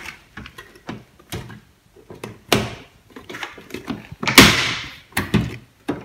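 Plastic control panel of a washing machine being pressed onto the cabinet frame, its plastic tabs clicking and knocking as they seat: a string of sharp clicks and taps, the loudest about four and a half seconds in.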